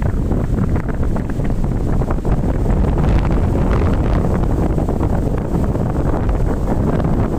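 Strong wind buffeting the microphone: a loud, rough rumble that surges in gusts, with a stronger, hissier gust about three seconds in.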